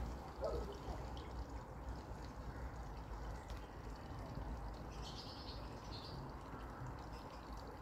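Steady low hum of an indoor enclosure's background noise. About half a second in there is a short falling call or voice sound, and around five seconds there are faint high scratchy sounds.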